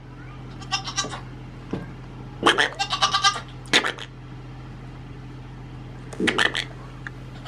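A goat kid bleating several times in short calls, with a pause of about two seconds before the last one.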